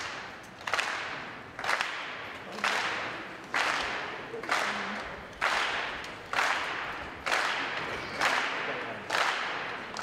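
A crowd clapping in unison, about one clap a second, each clap echoing through the hall.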